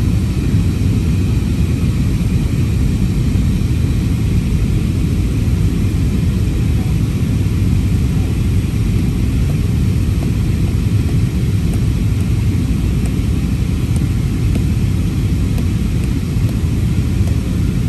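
Steady cabin noise of an Airbus A320-family airliner in flight, engine and airflow roar heard from a window seat, heavy in the low end and unchanging, during the descent to land.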